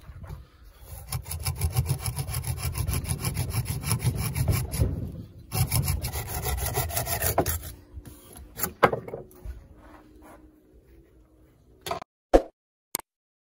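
Restored antique crosscut hand saw cutting through a tree branch clamped in a vise: quick rhythmic back-and-forth strokes in two runs with a short break in between, stopping after about seven and a half seconds. A few sharp knocks near the end.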